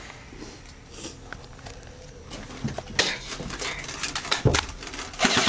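Scattered clicks and rustles with two sharp knocks, the second about four and a half seconds in; right at the end, an airsoft electric gun starts firing full-auto in a rapid, even burst.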